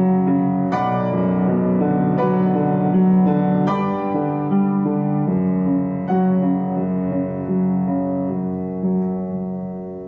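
Background piano music: slow, sparse notes struck about every second or two over held lower notes, growing softer near the end.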